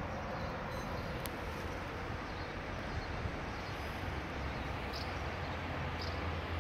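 Steady outdoor town background: a low rumble of distant traffic under an even hiss, with two faint short chirps near the end.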